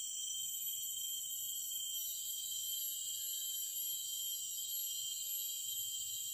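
Forest insects, crickets and cicadas, singing in a steady high-pitched chorus of several overlapping drones. One more drone joins about two seconds in.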